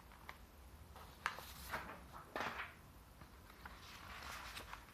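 Faint rustling and a few light clicks of a paper picture book being handled, over low room hum.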